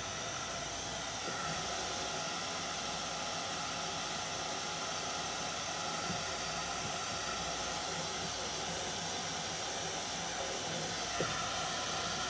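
Handheld hair dryer blowing steadily over freshly painted wood, drying the paint so it won't pull up under the black outlining.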